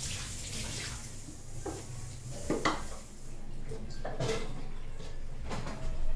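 Kitchen dishes and utensils clinking and knocking, a handful of separate clatters with the loudest near the end, over a low steady hum.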